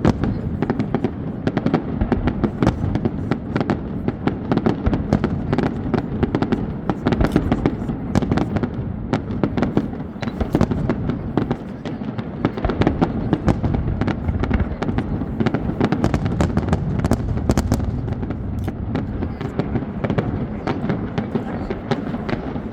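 Fireworks display going off: sharp bangs and crackles in quick succession, several a second, over a continuous low rumble.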